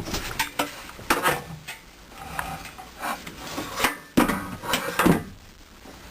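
Clattering and knocking of hard household items being shifted out of the way, about seven irregular knocks, the loudest a little past four seconds in.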